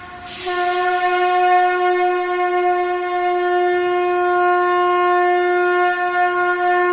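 Conch shell (shankh) blown in one long, steady note, starting with a short breathy rush of air.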